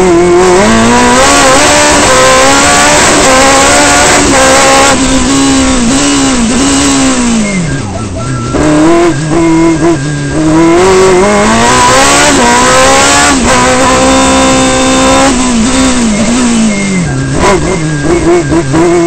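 Open-cockpit sports-prototype race car's engine heard from the cockpit, revving hard and dropping back again and again as it accelerates and brakes through slalom cones. The revs fall lowest about eight seconds in.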